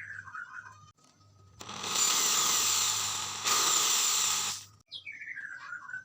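A power tool runs for about three seconds in two stretches with a brief dip between them, then stops. Near the end comes a short call that falls quickly in pitch.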